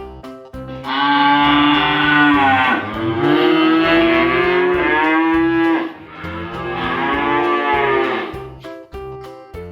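Cow mooing three times, each moo long and bending in pitch. Light background music with short repeated notes plays underneath.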